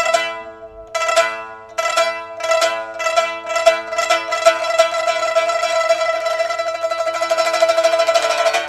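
Music played on a plucked string instrument. Single plucked notes repeat faster and faster until, about halfway through, they run together into a rapid tremolo.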